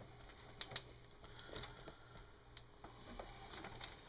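Faint, scattered light clicks of small metal chain links being handled as a snow chain is fitted around an RC truck tire.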